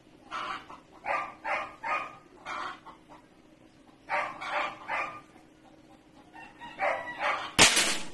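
Domestic animal calling in groups of short, repeated calls. Near the end comes one loud, sharp burst, the shot of a .22 PCP air rifle.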